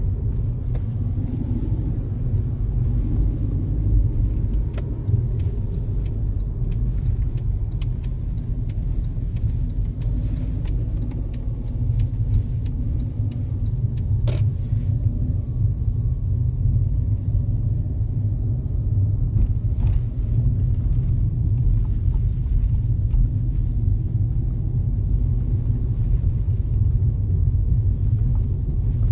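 Car driving, with steady low road and engine rumble heard from inside the cabin. A sharp click about fourteen seconds in.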